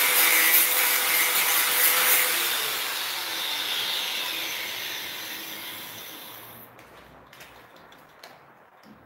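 Handheld power tool cleaning the welded corner seam of a PVC window frame. It runs for the first two or three seconds, then is switched off and winds down, fading over several seconds. A few light knocks follow near the end.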